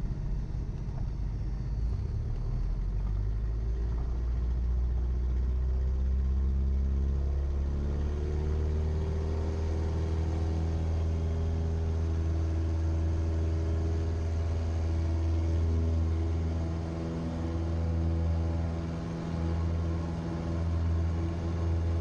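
Cessna 172's piston engine running up to full power, its pitch climbing and then holding steady: the power-up for the takeoff of a touch-and-go after the flaps come up and the carb heat goes off.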